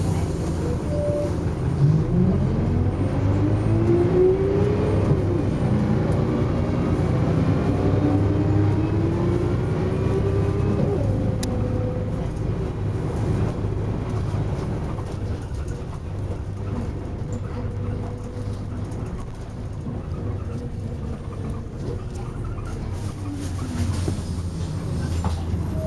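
Volvo B10BLE bus with a ZF automatic gearbox, heard from inside the passenger saloon as it accelerates. The engine and gearbox whine rise in pitch, drop at a gear change about five seconds in, then climb again before settling and easing off.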